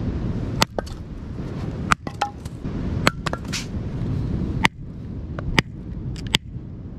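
Hatchet splitting firewood on a wooden chopping block: about six sharp knocks, spaced roughly a second apart.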